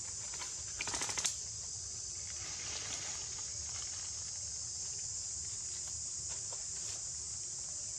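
Steady high-pitched drone of insects in the forest, with a brief crackle of dry leaves rustling about a second in.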